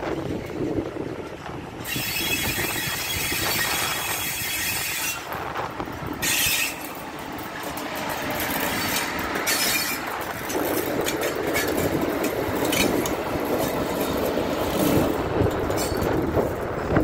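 A freight train of tank wagons hauled by two electric locomotives passes close by, its wheels rumbling and clicking over the rail joints and points. For a few seconds, starting about two seconds in, a high wheel squeal rises over the rumble.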